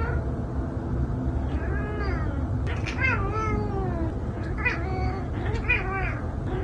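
A cat meowing about four times, the longest call about three seconds in, falling in pitch and drawn out for about a second. A steady low hum runs underneath.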